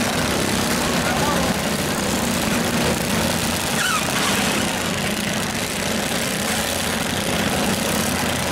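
Several garden tractors' small engines running at once, a steady mixed drone, over the chatter of a large crowd.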